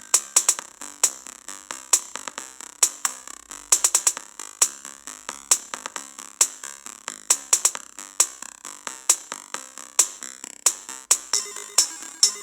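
Electronic music with a drum-machine beat and synthesizer, played through the Lenovo K6 Power smartphone's small built-in loudspeaker. It has sharp, bright hits and almost no bass.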